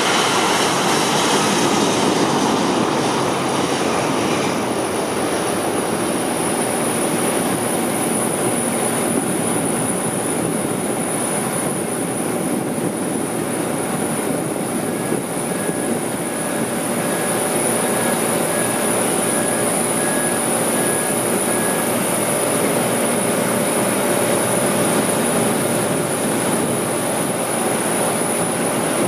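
Airbus A340-600's four Rolls-Royce Trent 500 jet engines at takeoff power, a loud, steady jet noise as the airliner rolls down the runway, lifts off and climbs away.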